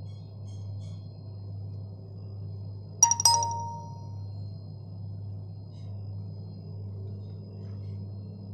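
Two quick clinks of a struck dish about three seconds in, each ringing briefly and fading within a second, over a steady low hum.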